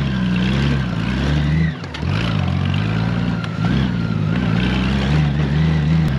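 Honda Gold Wing motorcycle's engine running under way on a rough dirt trail, with a brief drop in revs about two seconds in before it picks up again.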